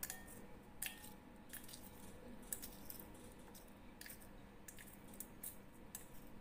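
Silicone spatula stirring dried red chilli pieces through a thick sauce in a glass bowl: faint wet squishing with light, irregular clicks.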